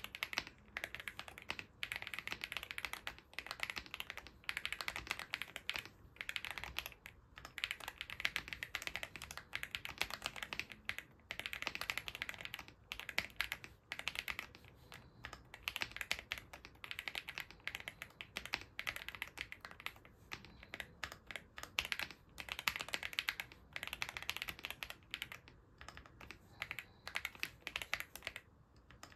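Fast typing on a TN80 mechanical keyboard fitted with factory-lubed Leobog Greywood V3 linear switches and full foam dampening. Rapid runs of keystrokes come in bursts with brief pauses between them.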